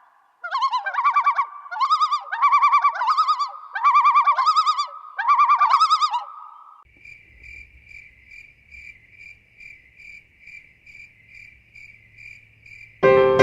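A bird calling in about six bursts of rapid, repeated notes. About seven seconds in it gives way to an insect's steady high chirping at two or three pulses a second. Piano music comes in right at the end.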